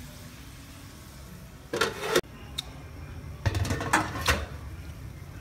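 Aluminium wok lid clanking against the wok as it is lifted off about two seconds in, then a short run of metal knocks and clatters as it is handled and set aside a second and a half later. A low steady rumble runs underneath.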